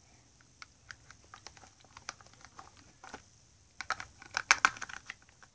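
Small hard-plastic toy figures and a plastic toy carriage being handled: scattered light clicks and taps, with a quicker, louder run of clacks about four seconds in.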